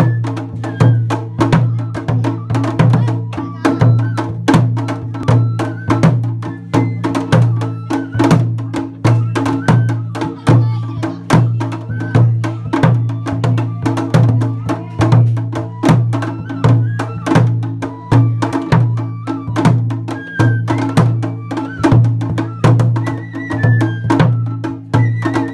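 Festival taiko, a large barrel drum on a float, beaten with sticks in a steady rhythm of about one deep stroke a second, with quick sharp clacks between the strokes and a high stepping melody over it, as traditional Japanese festival music.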